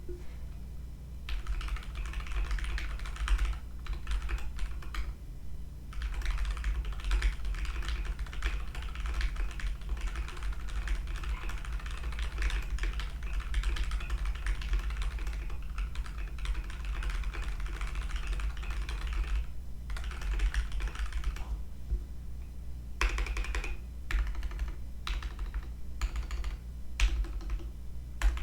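Typing on a KBDfans KBD75 rev 2 mechanical keyboard: fast, dense runs of keystrokes broken by a few short pauses, with slower, separate key presses near the end. A steady low hum sits underneath.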